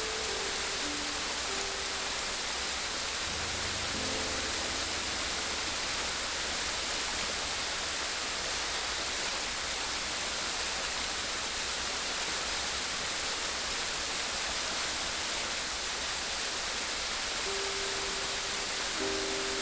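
Steady, unbroken rush of running water. Soft background music adds a few held notes at the start, around four seconds in, and near the end.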